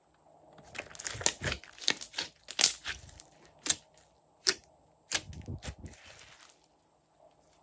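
Hands pressing and squeezing a thick slime, giving a run of sharp pops and clicks for a few seconds as air pockets in it burst, then a softer squelching stretch before it goes quiet.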